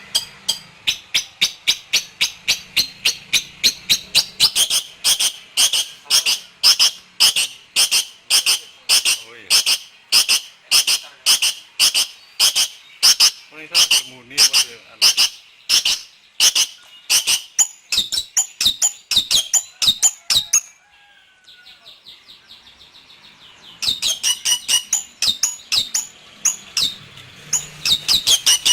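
Long-tailed shrike (pentet) singing a long run of sharp, evenly repeated high notes, about two to three a second. It breaks off for about three seconds roughly three quarters of the way through, then starts again.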